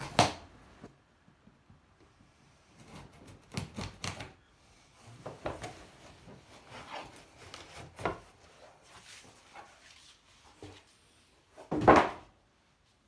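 Unboxing handling noise: cardboard and packaging being rustled, scraped and knocked in short bursts, with a sharp knock right at the start and the loudest knock about twelve seconds in.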